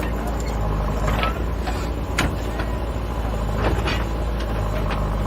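JCB backhoe loader's diesel engine running steadily, with a few short, sharp knocks of machinery over it.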